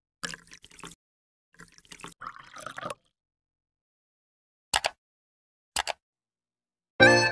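Irregular watery splashing and dripping noises, then two short sharp drip-like sounds about a second apart, with dead silence in between; music starts just before the end.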